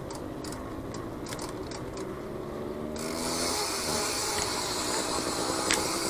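Bicycle freewheel ticking as the bike coasts slowly downhill, with tyre and road noise that grows louder about three seconds in.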